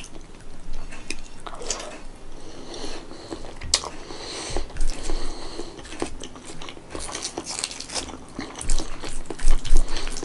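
Close-miked eating sounds: a person biting and chewing a boiled egg, with many short wet mouth clicks and smacks, and fingers scooping food in a bowl.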